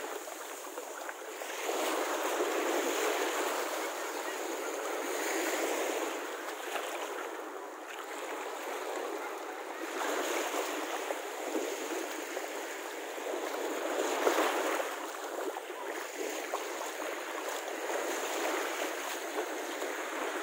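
Small waves washing up onto a sandy beach, the surf noise swelling and easing every few seconds, with beachgoers' voices in the background.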